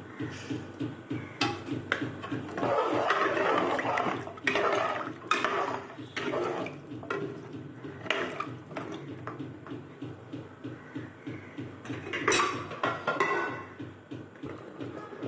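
Water pouring and splashing in several noisy bursts, over soft background music.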